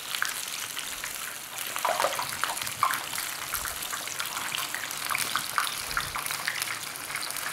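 Whole fish deep-frying in hot oil in a large pan: a steady sizzle with scattered crackles and pops.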